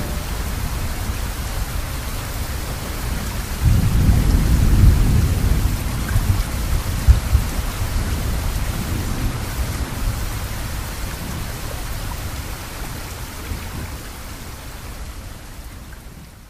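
Steady rain with a deep rumble of thunder that swells about four seconds in and slowly dies away; the rain fades gradually toward the end.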